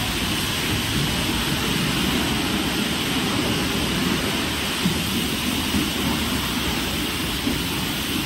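Pressure-washer wands blasting water against a semi truck, a steady rain-like hiss of spray with a low rumble underneath.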